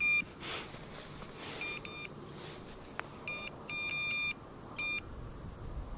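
Electronic carp bite alarm beeping: about six short bleeps at uneven intervals, with a longer run about four seconds in. The alarm is signalling line being pulled from the rod by a fish.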